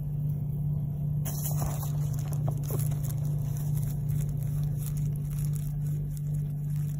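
A steady low hum throughout, the loudest sound. From about a second in, soft rustling and scraping with small clicks as a gloved hand presses green onion bases into potting soil in a plastic planter.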